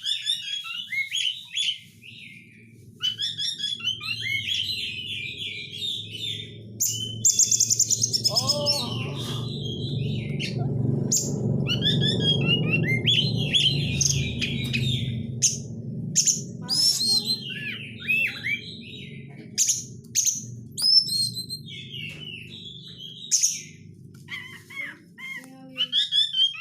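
Oriental magpie-robin singing a fast, dense run of chirps, whistles and harsh chattering rattles. A low rumble swells under the song through the middle and fades near the end.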